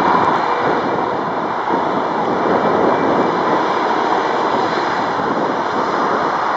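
Boeing 757-200's jet engines running steadily as the airliner taxis on the runway: an even, unbroken rushing noise with a faint tone around the middle.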